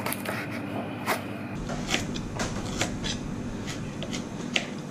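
Kitchen knife chopping ingredients on a wooden cutting board: a series of short, irregular knocks, about one or two a second, over a steady low hum.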